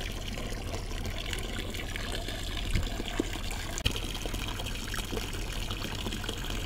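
Water from a pond filter's flexible outlet pipe pouring steadily into a basin of water, splashing and bubbling at the surface, with a couple of small knocks about three and four seconds in. Pond water is being run in slowly to acclimate newly arrived koi.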